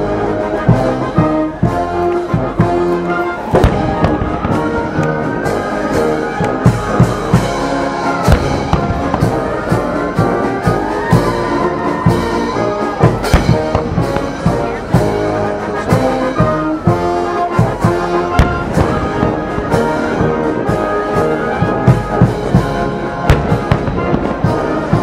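Brass band music playing with many sharp, loud percussive hits.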